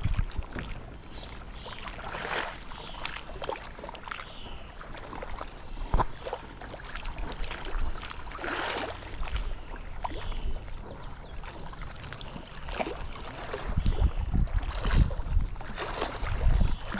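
Wind buffeting the microphone in uneven gusts that get stronger near the end, with one sharp click about six seconds in.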